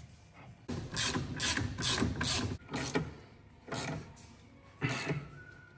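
Hand ratchet wrench worked in short strokes. A quick run of clicking strokes starts about a second in, followed by a few single strokes spaced about a second apart.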